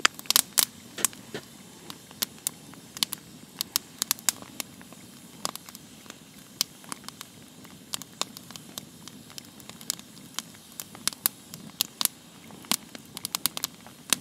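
Wood campfire crackling, with sharp irregular pops and snaps, some in quick clusters, over a faint low hiss.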